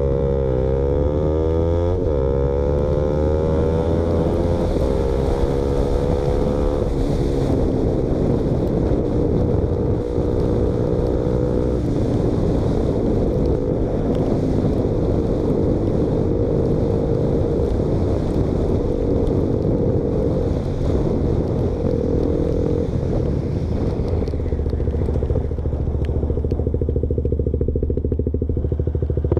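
KTM Duke motorcycle being ridden with its exhaust baffle removed, running louder than stock. The engine pitch climbs under acceleration over the first several seconds, then holds nearly steady at cruising revs.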